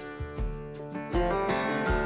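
Background music: strummed guitar over a steady low beat.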